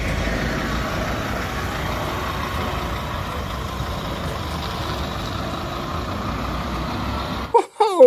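Bus engine running steadily under dense road and traffic noise, cutting off abruptly near the end.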